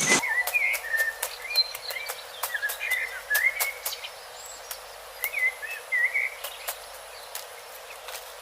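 Bird calls in forest: short, wavering whistled chirps in quick phrases, with scattered sharp clicks throughout.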